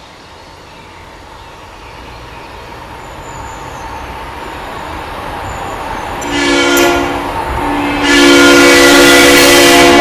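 Horn of the PRR 4400 locomotive sounding a chord, first a short blast about six seconds in, then a longer, louder one from about eight seconds in. Before the horn, the train's rumble grows steadily louder as it approaches.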